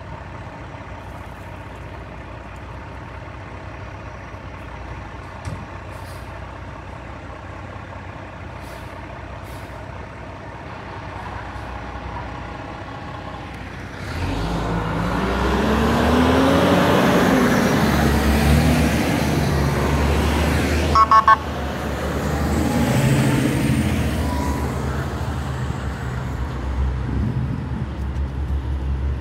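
Diesel engines of fire apparatus (fire engines and a tower ladder) running at idle, then much louder about halfway through as a truck pulls up close and revs, its pitch rising and falling. About two-thirds of the way in come three short, sharp sounds in quick succession.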